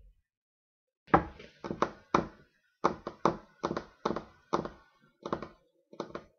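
Repeated thumps on a desk, about two to three a second and sometimes in quick pairs, starting about a second in.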